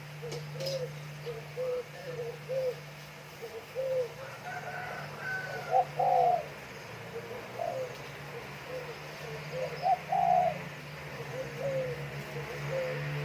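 Spotted doves cooing back and forth: a run of short repeated low coos, with louder, higher coos around the middle and again later on.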